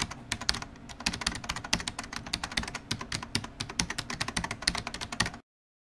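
Typing sound effect: rapid, irregular keyboard clicks that cut off suddenly near the end.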